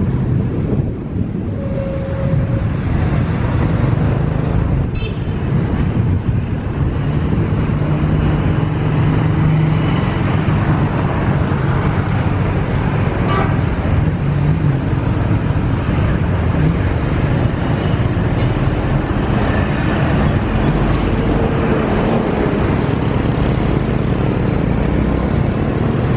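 Ride on a motorbike taxi in city traffic: the bike's small engine running steadily, with tyre and road noise and the surrounding traffic of cars and motorbikes.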